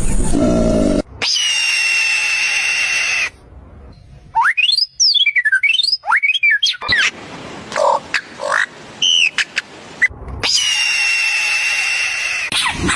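A run of high-pitched animal calls cut together: a long steady high call, then quick whistles gliding up and down, short chirps, and a second long steady high call near the end.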